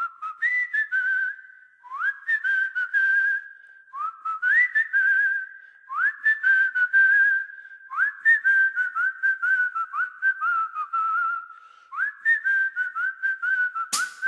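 Solo whistled melody opening a march: short phrases about two seconds long, each starting with an upward scoop and ending in trills. A loud hit comes near the end.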